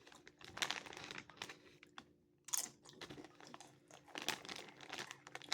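A person chewing a crunchy fried taco wrap made with chips, in a series of sharp crackly crunches with a louder crunch about two and a half seconds in.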